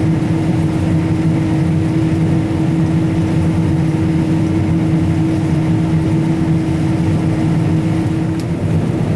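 Combine harvester running steadily while cutting soybeans: an even engine and machinery drone with a steady hum. A higher steady tone drops out near the end, where a short click is heard.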